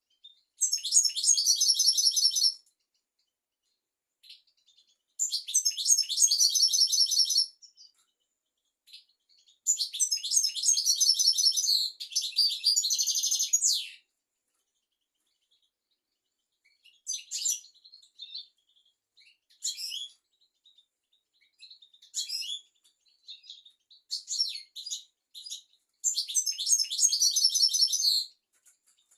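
European goldfinch singing: fast, high twittering song phrases of about two to four seconds each, separated by pauses, with short scattered call notes between them.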